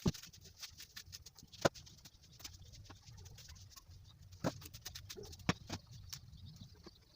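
Greens such as pumpkin leaves being broken and picked over by hand: irregular small snaps and clicks, with a few sharper snaps near the start, after about a second and a half, and twice in the second half.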